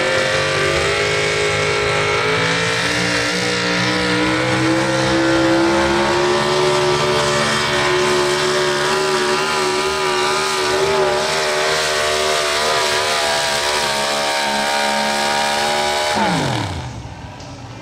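Engine of a Ford pro stock 4x4 pulling truck running hard as it drags the pulling sled, its pitch climbing slowly and wavering in the middle of the pull. About sixteen seconds in, the throttle is cut and the pitch drops quickly as the truck comes to a stop.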